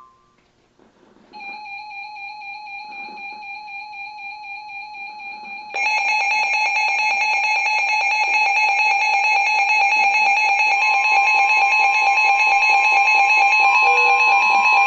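Electronic Emergency Alert System alert tones: a steady tone starts about a second in. Just before six seconds it is joined by a much louder, harsher multi-pitched tone that holds, with a further pitch added about eleven seconds in.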